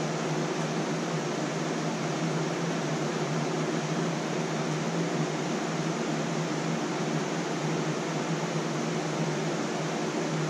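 Steady whir of electric fans running, with a low even hum.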